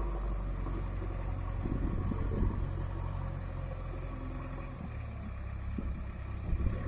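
JCB 3DX backhoe loader's diesel engine running steadily, with a few short knocks about two seconds in and again near the end.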